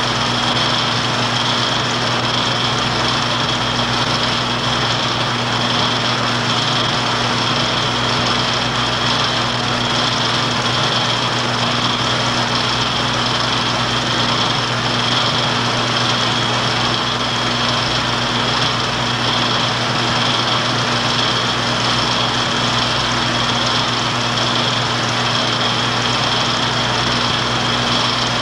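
Film projector running: a steady mechanical whir with a low hum and a high whine, unchanging throughout.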